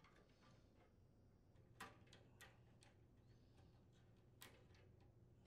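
Near silence with a few faint clicks: wire spade connectors being pulled off the terminals of a furnace control board.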